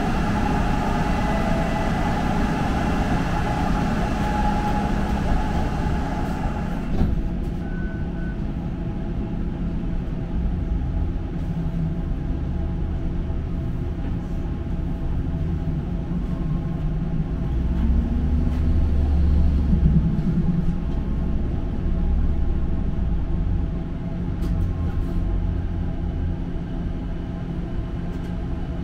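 A streetcar running along its tracks, heard from inside the car: a continuous low rumble with a few steady tones over it. The higher hiss and tones drop away about seven seconds in, and the low rumble swells for a few seconds about two-thirds of the way through.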